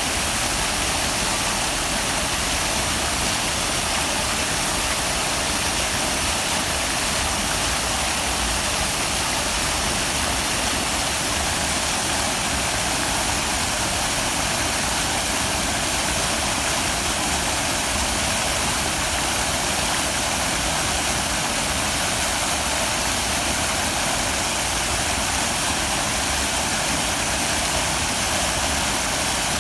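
Waterfall rushing steadily, an even hiss of falling water that never changes.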